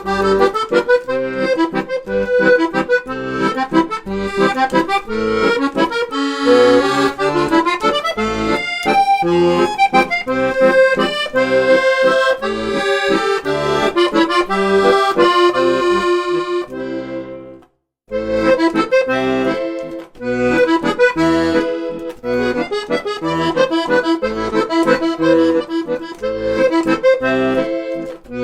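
Instrumental background music with quick, rhythmic melody notes. It stops for a moment about two-thirds of the way through, then starts again.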